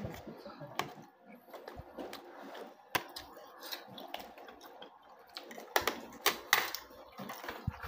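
A child chewing pizza close to the microphone: irregular wet clicks and smacks, busier and louder near the end.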